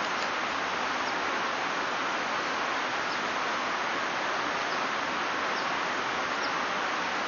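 Steady rush of white water in a river, an even noise with faint high ticks now and then.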